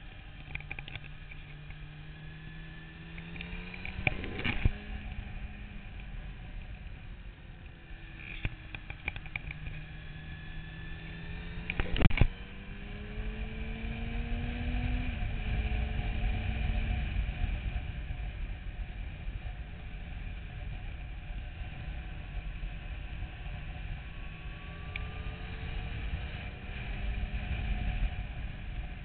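Motorcycle engine heard from the machine itself while riding, its tone climbing in pitch and then dropping several times as it pulls through the gears, over a steady rush of wind and road noise. A few sharp knocks cut through, the loudest a little under halfway through.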